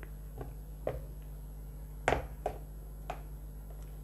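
Steel spoon stirring thick chutney in a steel bowl, clinking against the bowl in a few sharp, irregular clicks, the loudest about two seconds in, over a steady low electrical hum.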